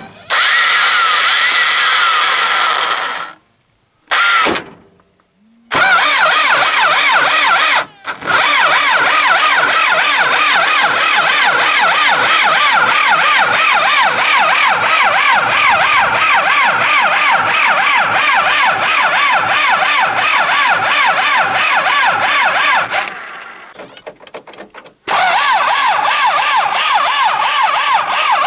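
Starter motor cranking the UTB 650 tractor's diesel engine on a cold start at −15 °C, a whine that rises and falls with each compression stroke. It comes in bursts: a few seconds at first, a very short one, a long crank of about 17 seconds, then another crank near the end.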